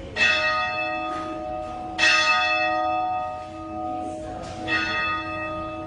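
Church bell tolling: three strikes about two to three seconds apart, each ringing on and fading under the next.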